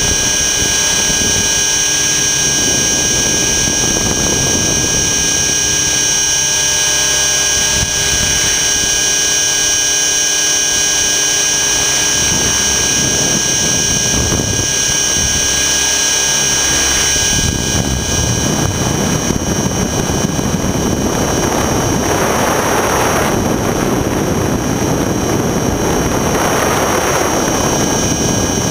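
Electric T-Rex 600 ESP RC helicopter in flight, heard from a camera on its own frame: a steady high-pitched motor and drive whine with rotor noise. About 17 s in the whine weakens and a rushing noise takes over, swelling and fading twice near the end.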